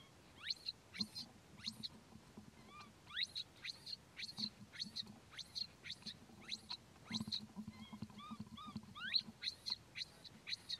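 Baby macaque crying: a steady string of short, high-pitched rising calls, several a second, with a few drawn-out whimpering calls in between.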